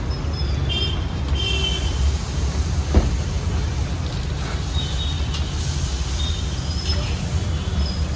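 Steady low rumble of street traffic, with one short knock about three seconds in.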